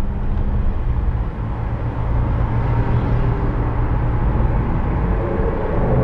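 Car driving along a city road: a steady low rumble of engine and tyres, with surrounding traffic.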